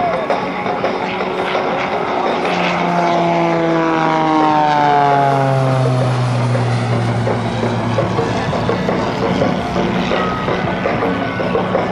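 Pitts Special aerobatic biplane's engine and propeller droning loud and steady as it passes. The pitch drops from about three seconds in to about seven seconds in, then holds lower.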